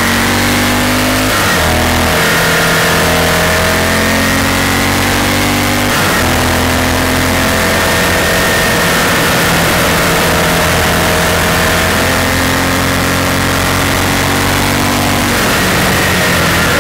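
Honda Varadero V-twin engine pulling at mid revs under way, its note stepping up and back down a few times as the throttle is worked through the bends, with steady wind rush over the helmet.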